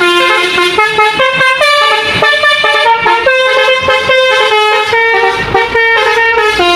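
Truck-mounted basuri musical air horn playing a tune: loud held notes that step up and down in pitch, one after another with hardly a break.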